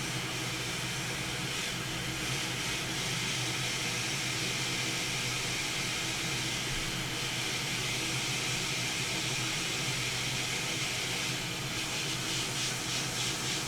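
Hot air rework station blowing a steady hiss of hot air onto the underside of a laptop circuit board to melt the solder on a power button.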